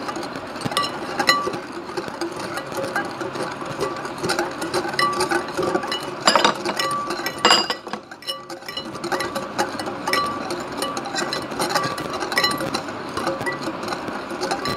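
Wire balloon whisk beating instant coffee, sugar and hot water in a glass bowl, its metal wires rapidly clinking against the glass. The mixture is still thin and liquid, early in the whipping before it turns fluffy. A brief lull comes a little after the middle.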